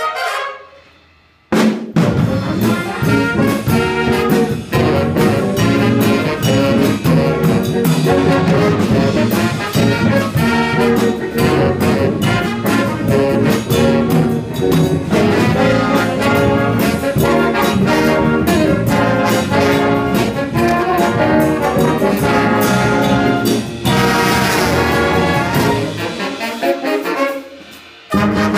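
Jazz big band playing live, with saxophones, trombones and trumpets over piano and drum kit. The band stops about a second in and again near the end, the sound dying away each time before the full ensemble comes back in, with a louder, brighter ensemble passage just before the second stop.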